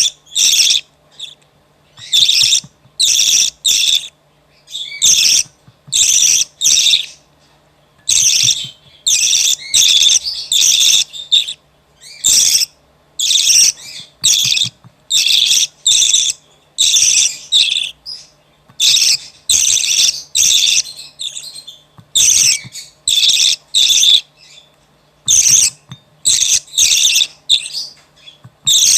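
Budgerigar chick begging: high, scratchy chirping calls in rapid bursts, one or two a second, broken by short pauses.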